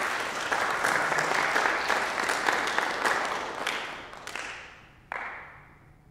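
Audience applauding, then dying away over the last couple of seconds, with a brief swell about five seconds in.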